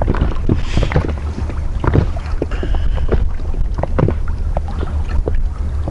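Small choppy waves slapping and knocking irregularly against the hull of a PVC inflatable boat, over a steady low rumble of wind on the microphone.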